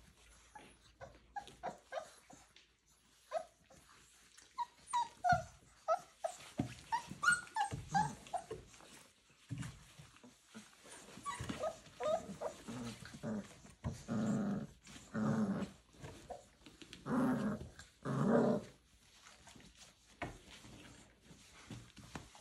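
Boerboel puppies at play: a run of short, high yips and whimpers, then four deeper, longer growls of about a second each, in two pairs, in the second half.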